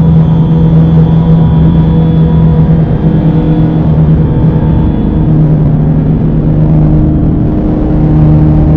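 Dark ambient drone music: a loud, steady low drone with a few fainter held tones above it over a dense wash of noise, with no beat.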